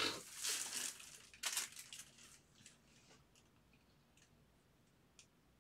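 Trading-card pack wrappers rustling and crinkling in hand for the first two seconds, then a few faint clicks and taps as a stack of cards is squared on the table.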